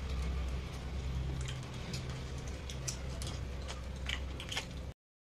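Close eating sounds: scattered small clicks and smacks from chewing and from fingers picking apart fried fish on a steel plate, over a low steady hum. The sound cuts off abruptly near the end.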